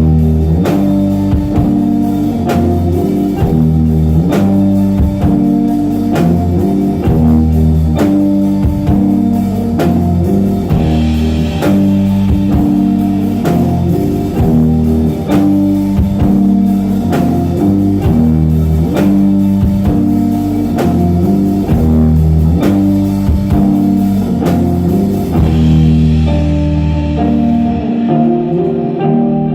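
Instrumental post-rock played live on electric guitar and drum kit, a repeating guitar figure over steady drum hits. Near the end the drums stop and the guitar carries on alone.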